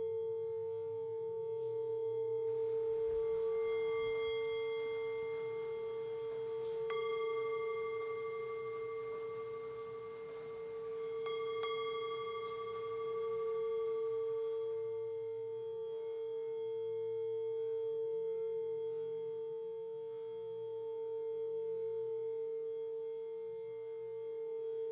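A singing bowl ringing with a steady, slowly swelling drone. A few strikes near the middle add brighter, higher ringing tones that die away over several seconds.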